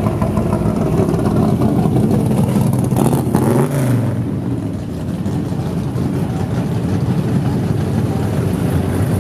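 Engines of classic cars and muscle cars rumbling as they cruise slowly past in a steady stream. About three seconds in, one car passes close, its engine note rising and then falling.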